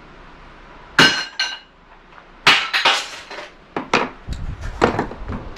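Salvaged metal parts from a stripped gas heater clinking and clanking as they are handled and dropped together, a dozen or so sharp knocks in irregular clusters, the first few ringing briefly.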